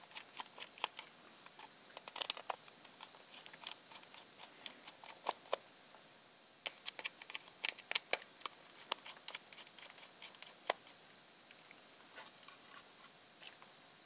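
Small screwdriver backing screws out of a plastic gearbox housing, with faint, irregular clicks and ticks as the bit works in the screw heads and the plastic case is handled.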